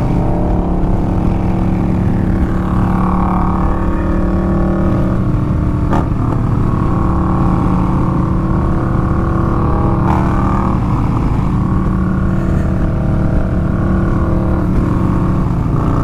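Harley-Davidson motorcycle V-twin engines running at a steady highway cruise, with the rider's 2022 Low Rider ST's Milwaukee-Eight 117 and a second Harley riding alongside, engine pitch holding level over rushing wind and road noise.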